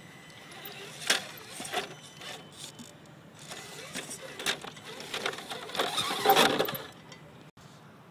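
Scale RC rock crawler with a 35-turn brushed motor working over rocks: a low electric motor and drivetrain whir under knocks and scrapes of tyres and chassis against the stones, with a dense clatter about six seconds in. The sound cuts off abruptly near the end.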